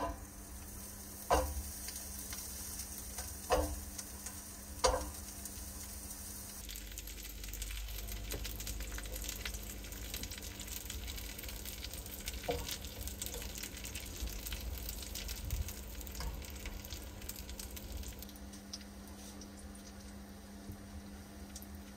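Slices of sucuk sausage frying in a steel pan on a gas hob: a few sharp clacks as the slices are put into the pan, then a steady crackling sizzle of fat, which gets quieter near the end.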